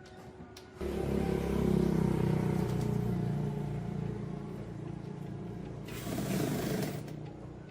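An electric motor switches on about a second in and runs steadily with a low hum, with a brief harsher hiss near the end.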